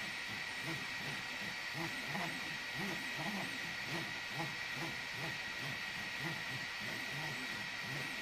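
Small EasyThreed K10 desktop 3D printer printing: its stepper motors whir in short, irregular pitched moves over the steady hiss and whine of its cooling fan.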